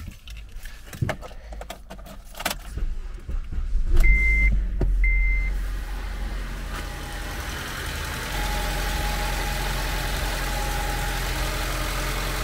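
Clicks and rattles, then the Honda Civic's 1.8-litre four-cylinder engine is cranked and starts about four seconds in, with two short high beeps. It then settles into a steady idle.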